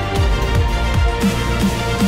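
Background music with a steady beat: thumping electronic kick drums under sustained synth tones.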